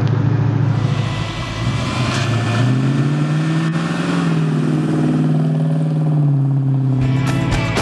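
1970 Ford Mustang Mach 1's 351 Cleveland V8 with H-pipe exhaust and stainless mufflers running steadily, then accelerating past with its engine note rising, holding, and dropping off as the car pulls away. Music comes in near the end.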